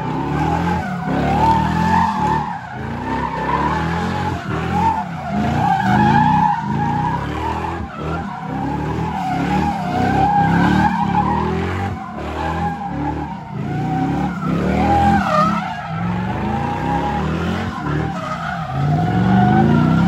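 A car doing donuts, its tyres squealing continuously with a wavering pitch. Under the squeal the engine revs up and down again and again, with one long rising rev near the end.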